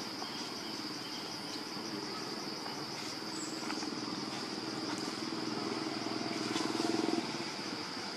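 Steady high-pitched insect drone over a low vehicle engine hum that grows louder for a few seconds, then drops away near the end.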